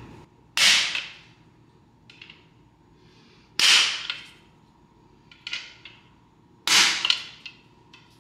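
Hammer blows on metal, three hard strikes about three seconds apart, each ringing briefly, with lighter taps between. The blows knock a jammed, twisted valve lifter down in the bore of a failed GM LS2 V8 block.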